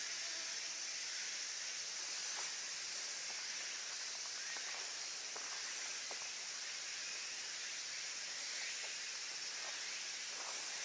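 Steady high-pitched hiss of a summer cicada chorus, with a few faint ticks over it.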